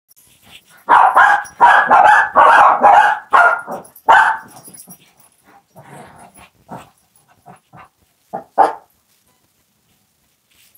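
Shih Tzu barking: a quick run of loud barks from about a second in until about four and a half seconds, then scattered softer barks, with one more loud bark at about eight and a half seconds.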